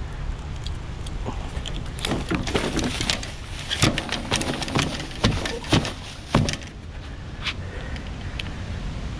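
Knocks and clatter on wooden dock boards as a freshly landed salmon is handled and unhooked with pliers and a lip gripper, several sharp thumps bunched in the middle, over a steady low rumble.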